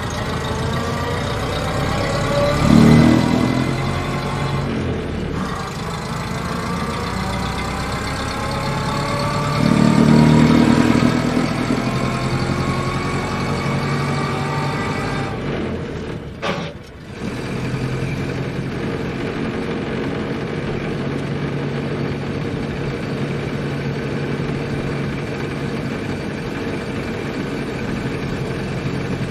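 Old car's engine running while driving, its pitch rising twice as it speeds up, with a brief drop in sound about sixteen seconds in, then running steadily.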